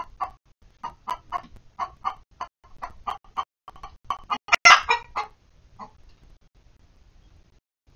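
Hens clucking in a quick run of short clucks, two or three a second, with one louder, longer call about four and a half seconds in. The clucking stops about six seconds in.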